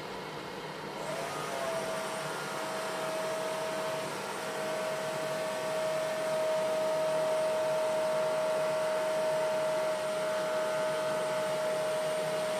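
Vegetable fritter (bakwan) batter frying in hot oil in a pan: sizzling that starts about a second in as the batter hits the oil and grows louder as more spoonfuls go in. A steady high tone runs alongside it from about two seconds in.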